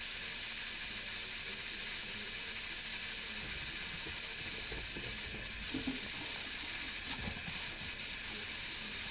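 Steady high hiss, with a few faint soft knocks about six and seven seconds in.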